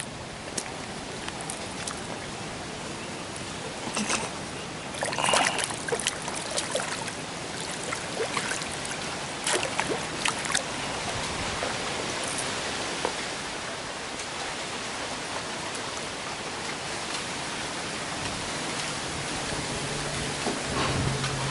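Steady rush of flowing water, with a few short clicks and knocks about four to six seconds in and again around ten seconds. A low steady hum comes in near the end.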